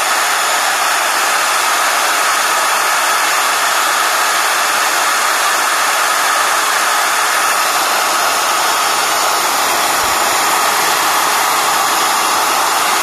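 Bosch GBM 350 W rotary drill's motor running steadily as soon as it is plugged in, with its trigger not pressed: the switch has stopped working and the drill runs directly off the mains.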